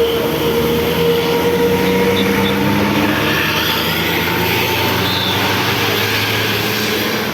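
Tour bus's diesel engine running steadily under a constant noisy hiss.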